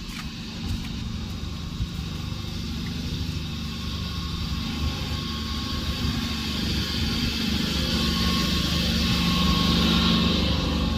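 River water pump in a pump house running, a steady mechanical drone that grows louder toward the end.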